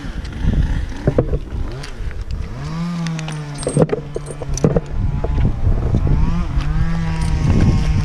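An engine revs up about two and a half seconds in, then runs at a steady pitch with a brief dip near the end. Light metallic clinks from the climber's rope hardware sound over it.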